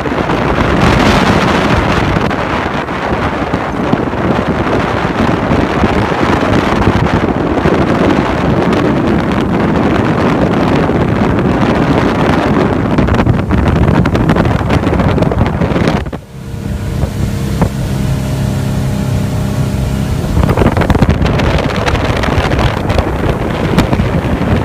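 Motorboat running at cruising speed, its engine drone buried under loud wind rush on the microphone and water noise. About 16 seconds in the wind drops away for a few seconds, leaving the steady engine hum clearly heard, then the wind rush returns.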